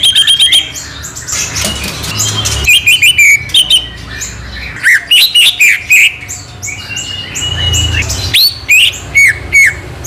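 Green leafbird (cucak ijo) in a cage singing loudly: quick runs of sharp whistled notes, chirps and rising and falling sweeps in several bunches, with a few longer held whistles. It is a prize-winning contest bird in top singing form.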